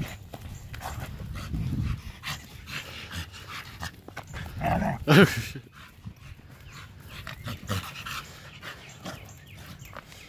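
A Doberman and a smaller tan dog playing rough on grass: quick scuffles and footfalls, with one loud short dog vocal sound about five seconds in.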